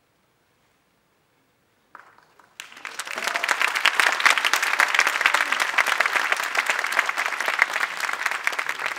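Near silence for about two seconds, then an audience starts applauding and keeps up dense, steady clapping.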